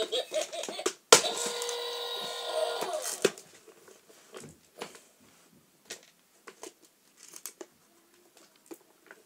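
A Dusty toy garbage truck plays an electronic sound effect, several steady tones held for about two seconds, starting about a second in. Scattered light plastic clicks and knocks follow as the truck is handled and its yellow bin tipped out onto the carpet.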